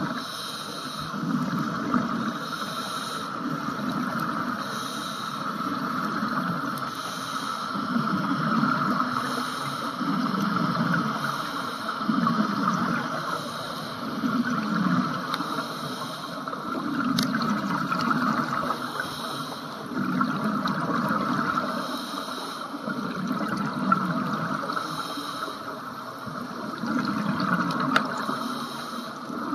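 Scuba breathing heard underwater: regulator hiss and bubbling exhalations in a steady rhythm, repeating about every two seconds. Two sharp clicks stand out, one past the middle and one near the end.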